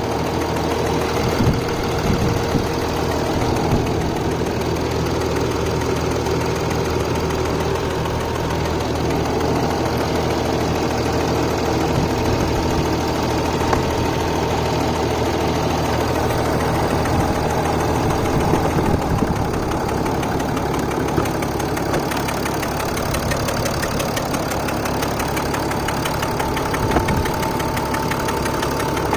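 Mercedes ML350 BlueTec's OM642 turbocharged V6 diesel engine running with a metallic ticking, which an independent mechanic called a normal noise.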